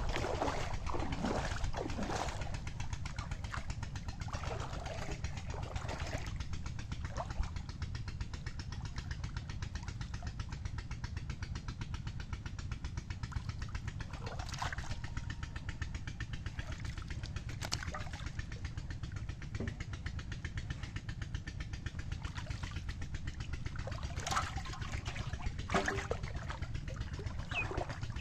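Scattered splashes and sloshing of shallow muddy water as a bamboo cone fish trap is pressed into it and worked by hand from inside, over a steady low rumble.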